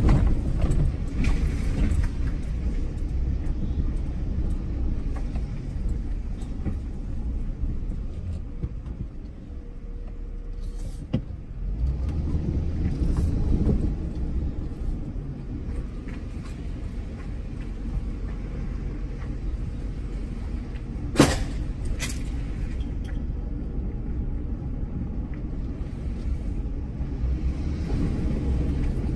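Pickup truck driving slowly, its engine and tyres making a steady low rumble heard from inside the cab, with two sharp knocks about a second apart roughly three-quarters of the way through.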